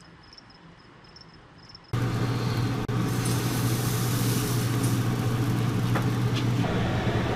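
Faint insects chirping in a steady pulse. About two seconds in, this gives way abruptly to a loud, steady machine hum with rushing air and a constant low drone.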